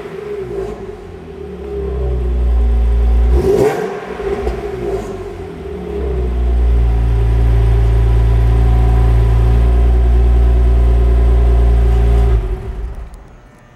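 Infiniti G37's 3.7-litre V6, breathing through Stillen headers and Tanabe test pipes, revved with the car standing still. The revs climb and fall back in the first four seconds, then are held high and steady for about six seconds before dropping away about a second before the end.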